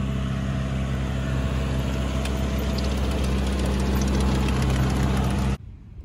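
An engine running steadily at idle, a constant low hum that stops abruptly about five and a half seconds in.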